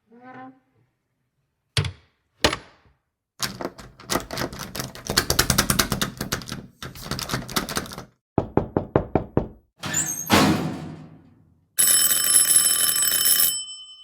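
A run of door sound effects: a short creak, two single knocks, a long spell of rapid knocking on a door, a quicker run of about eight knocks, then a loud slam that rings out. Near the end an electric doorbell or buzzer rings for about two seconds and cuts off suddenly.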